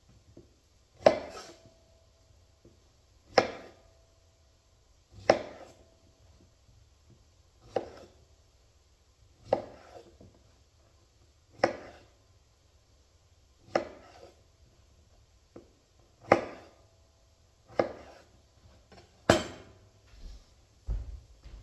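Kitchen knife cutting strawberries into quarters against a chopping board: sharp single knocks, about one every two seconds, some with a brief ring after them.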